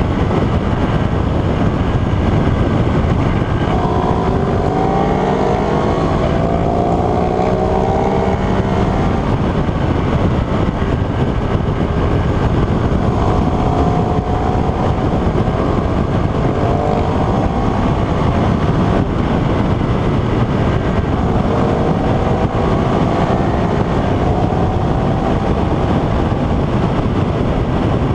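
Ducati Streetfighter 848's L-twin engine running at road speed under heavy wind noise on the microphone. The engine note climbs several times as the bike accelerates, most clearly a few seconds in.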